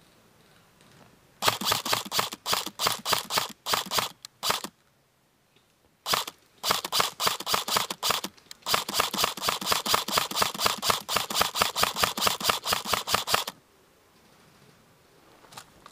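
Airsoft electric rifle firing rapid repeated shots, about six a second, in two long strings: the first from about a second and a half in to nearly five seconds, the second from about six seconds to about thirteen and a half.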